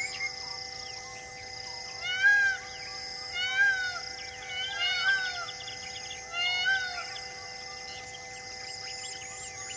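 A bird calls four times in about five seconds, each call a loud, short note that rises and falls. A steady high drone of tones runs underneath.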